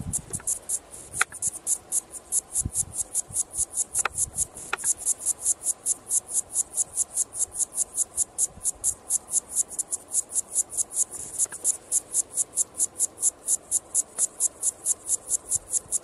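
A cicada singing: a steady, rhythmic song of high-pitched pulses, about four a second, kept up without a break.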